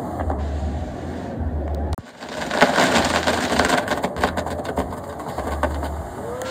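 Pyrotechnic castle burning: a steady hiss of fireworks fountains and spinning wheels, thick with rapid crackling pops, growing louder and denser about two and a half seconds in.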